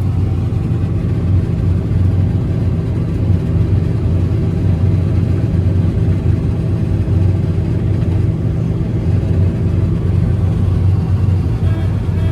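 John Deere 9750 STS combine running steadily while harvesting wheat, heard from inside the cab: an even, unbroken low drone of engine and threshing machinery.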